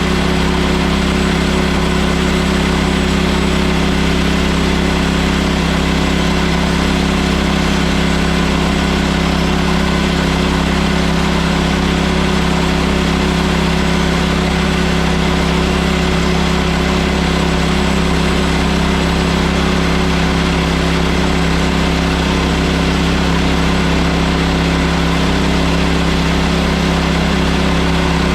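HM130 portable bandsaw sawmill's gasoline engine running at a steady, unchanging speed throughout, without pauses.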